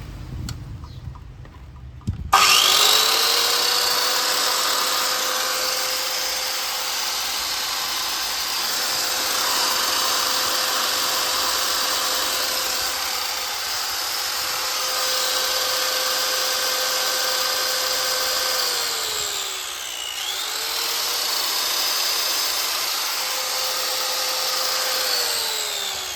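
SENCAM electric tree-cutting saw starting up about two seconds in and running with a steady motor whine while cutting wood. The motor slows and speeds up again about twenty seconds in, then winds down near the end.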